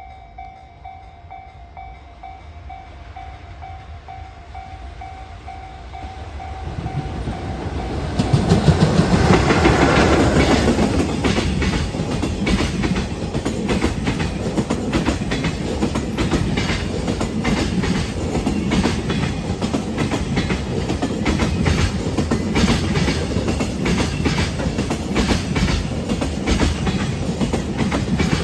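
Level crossing alarm ringing with a steady pulsing tone. The freight train's rumble builds from about six seconds in, and from about eight seconds it passes close by, its wheels clattering loudly over the rail joints in a fast, steady rhythm that drowns out the bell.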